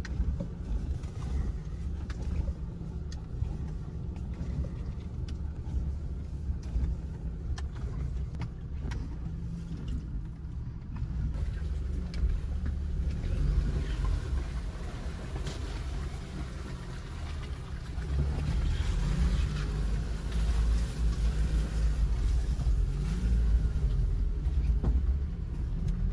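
Low rumble and scattered knocks of a Toyota Hilux pickup being towed over rough, wet ground, heard from inside its cabin. One of its tyres has come off the rim. The rumble gets louder in the second half.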